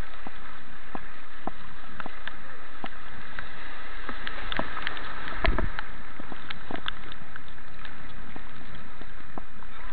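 Rushing grade 1 river white water heard through a helmet-mounted action camera: a steady hiss with scattered sharp splashes and knocks, and one louder low thump about five and a half seconds in.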